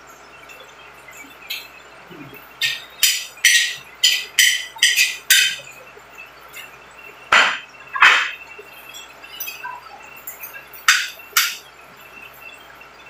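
Metal spoon and fork clinking and scraping on ceramic plates while eating: about a dozen sharp clinks in irregular clusters, each ringing briefly.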